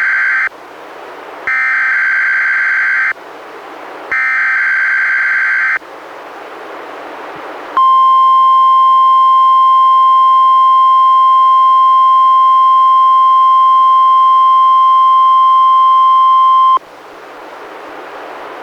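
NOAA Weather Radio Required Weekly Test played by a Reecom R-1630 weather radio. It opens with three harsh digital SAME header data bursts, each about a second and a half long with radio hiss between them; the first is already under way at the start. About two seconds later the steady 1050 Hz warning alarm tone sounds for about nine seconds, then cuts off suddenly into hiss.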